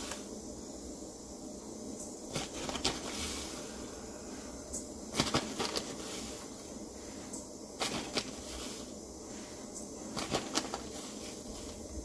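Sugar being spooned out of a plastic sugar bag into a stainless-steel bowl of cream: scattered light taps and rustles, a few seconds apart, over a quiet kitchen background.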